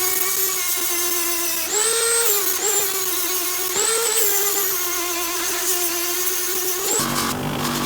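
High-speed electric power tool running with a steady whine while cleaning and polishing the vise's metal parts. Its pitch sags under pressure and rises briefly twice as the load eases. Shortly before the end it cuts to a lower, rougher motor sound.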